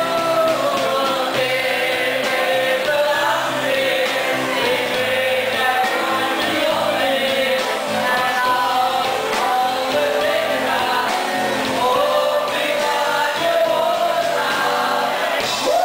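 Live music with singing into a microphone, several voices singing together over the backing.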